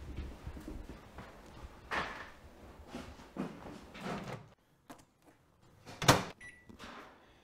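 Kitchen handling sounds, a refrigerator door and a plate, then a microwave oven door shut with a sharp clack about six seconds in, followed by a few short keypad beeps.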